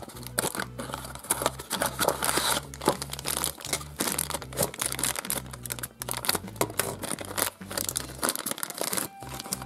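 Plastic packet crinkling and rustling as it is handled and torn open, after a small cardboard box is opened. The packet holds gummy sweets and a toy. A dense run of quick crackles and rustles.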